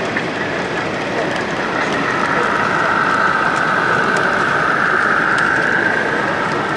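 Model railway train, a blue-and-grey diesel multiple unit, running close past on the layout. It makes a steady whirring of motor and wheels on track that grows louder about two seconds in, over a constant background of hall noise.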